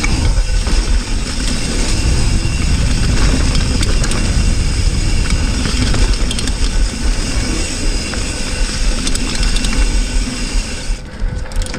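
Cannondale Cujo hardtail mountain bike riding a dirt trail: steady wind rush on the GoPro's microphone over tyre rumble, with scattered rattles from the bike. The rush eases near the end.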